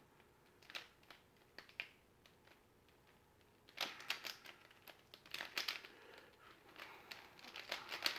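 A plastic mirror cube being turned by hand: a few faint, scattered clicks, then from about four seconds in, quick runs of clicking, rattling layer turns.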